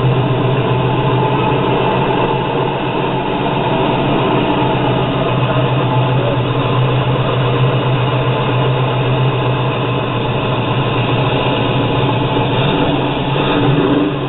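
1964 Chevy Nova wagon's V8 idling steadily through headers and a 3-inch exhaust.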